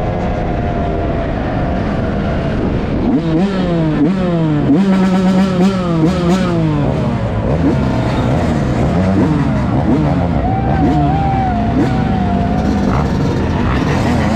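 Motorcycle engines revving, the pitch climbing and dropping again and again, with quick rev blips in the middle.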